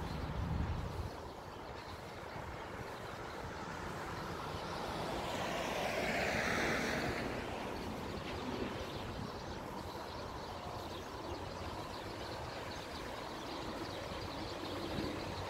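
A vehicle passing by: its sound swells to a peak about halfway through and then fades, over a steady outdoor rush of noise.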